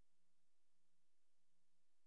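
Near silence: only a faint hiss and a faint low hum that pulses about twice a second, with no recorded sound.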